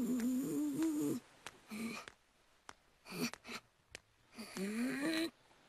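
An animated character's wordless vocal sounds: a drawn-out, closed-mouth hum with wavering pitch for the first second, a few short sounds in the middle, and another hum that rises in pitch near the end.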